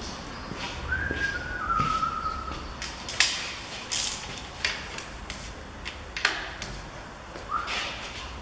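Metal clicks and knocks of a torque wrench being handled and fitted onto the strut's lower bolts, the sharpest about three seconds in and about six seconds in. A short whistle-like tone falls slightly about a second in, and another rises near the end, over a low steady hum.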